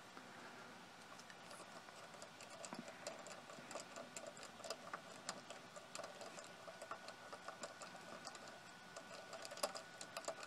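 Faint, irregular clicking and ticking of small screws being worked loose and handled on the metal cover plate of a show laser's head, with a few sharper clicks near the end.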